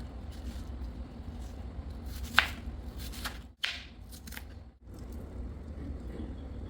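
A kitchen knife cutting red onion on a cutting board: a few scattered cuts and taps, the sharpest knock about two and a half seconds in, over a steady low hum.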